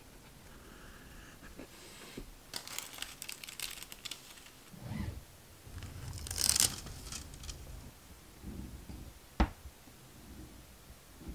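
Close-up leatherworking hand sounds: scratchy crackling and rustling of steel tools on leather, with a louder crinkling burst about two-thirds through as gold stamping foil is handled, and one sharp click near the end.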